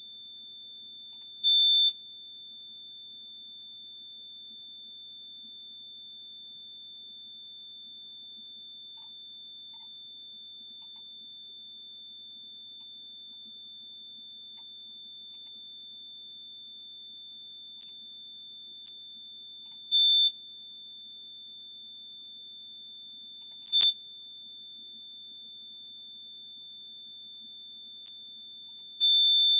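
Steady 3,554 Hz sine test tone from a PC signal-generator program, one unchanging high pitch. Four times it briefly jumps much louder: about one and a half seconds in, at about twenty and twenty-four seconds, and near the end.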